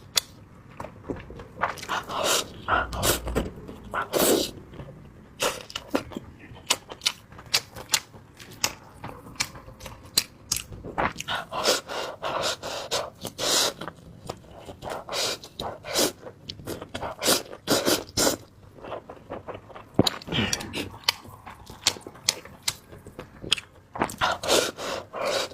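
Close-miked eating of instant noodles: slurping and chewing with many short wet smacks and clicks, and a few longer slurps.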